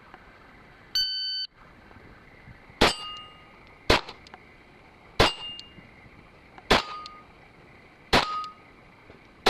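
A shot timer's start beep about a second in, then single pistol shots at a steady pace about a second apart, each followed by the short ring of a struck steel plate; five shots, with a sixth right at the end.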